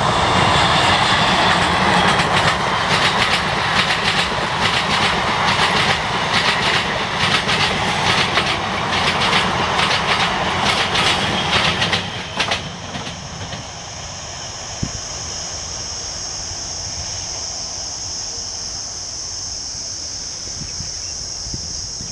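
Indian Railways MEMU electric train passing close at speed, its wheels clattering over the rail joints in a quick, even rhythm. About twelve seconds in the clatter stops and the sound drops. A steady high insect drone then remains over a low background rumble.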